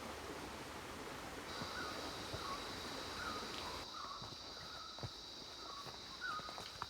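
Rainforest insect drone: a steady high-pitched buzz starts about a second and a half in and holds. Repeated short chirps and a few faint clicks sound under it, and a background hiss drops away about four seconds in.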